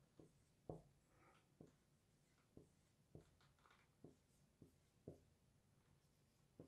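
Faint taps and light scratching of a marker writing numbers on a whiteboard, a soft tap every half second or so.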